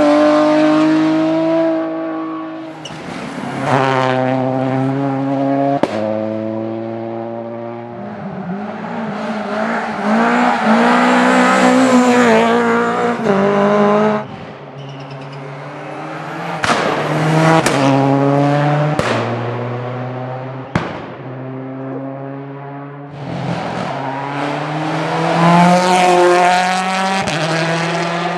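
Rally car engine revving hard and changing gear, the pitch climbing and dropping as it accelerates, brakes and shifts. Sharp cracks come at several of the shifts, and the sound swells and fades as the car approaches and passes.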